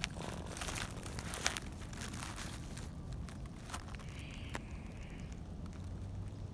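Crinkling and rustling handling noise, a dense run of small crackles in the first two seconds and sparser ones after, over a low steady hum.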